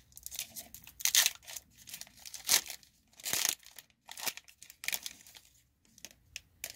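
Foil wrapper of a Pokémon Sword and Shield booster pack torn open and crinkled by hand, a string of short, uneven crackles.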